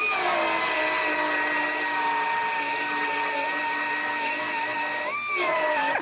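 High-speed power tool, used in cutting off a car's rear body panel, spinning up to a high-pitched whine. It runs steadily, its pitch sagging a little under load, rises briefly near the end as the load eases, then stops.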